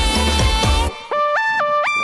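Electronic background music: a beat with heavy bass stops about halfway through, and a bare synth tune hopping up and down between a few notes, like a ringtone, takes over.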